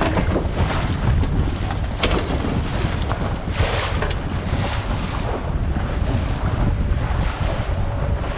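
Wind buffeting the microphone over waves washing against a small boat's hull. Brighter rushes of splashing come about halfway through.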